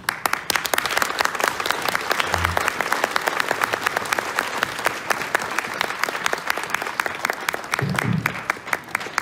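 Audience applauding, with one person's claps close and distinct above the rest.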